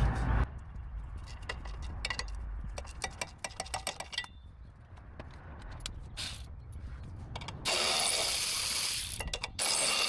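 Socket ratchet clicking rapidly as the 12 mm exhaust bolts are worked loose, followed near the end by two loud, steady hissing stretches of about a second and a half each.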